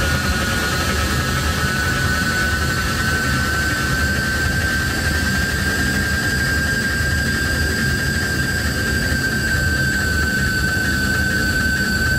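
Electronic drone music from a tabletop rig of electronic instruments: a steady, piercing whistle-like tone that creeps slowly upward in pitch over a dense, flickering low rumble.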